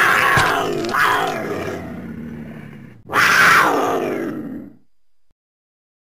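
Big cat growl sound effects over the bite, weakening over the first two seconds. Then a second loud roar about three seconds in, falling in pitch as it dies away.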